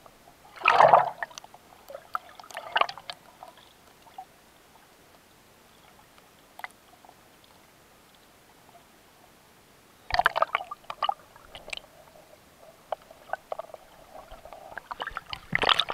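Water bubbling and sloshing against an action camera held underwater while swimming, in bursts about a second in, near three seconds, around ten seconds and near the end, with quieter muffled stretches between.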